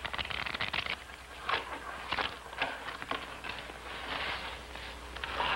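A deck of playing cards being shuffled and handled on a table: a quick run of clicks in the first second, then scattered taps and rustles. A steady low hum runs underneath.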